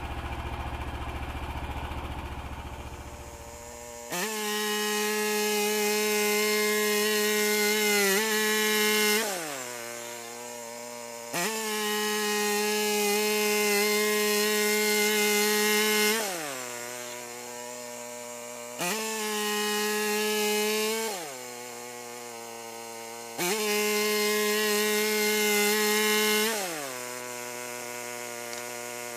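Petrol engine of a Frontier OS27 portable bandsaw mill throttled up from idle to full speed and let wind back down to idle, four times in a row, each high-speed run lasting about three to five seconds.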